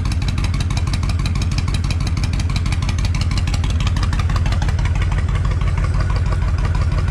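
Honda VTX1300's V-twin engine idling steadily.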